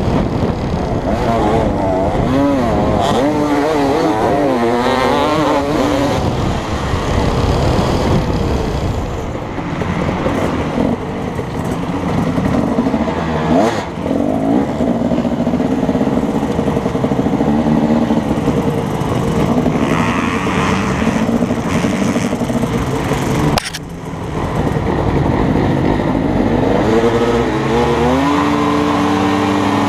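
KTM 250 SX two-stroke motocross bike engine, heard from the rider's helmet, revving up and down as it is ridden over a dirt track. After a sudden break about three-quarters of the way in, the engine is revved in repeated rising pulls at the starting gate.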